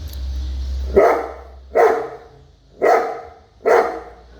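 A big dog barking four times, about one bark a second.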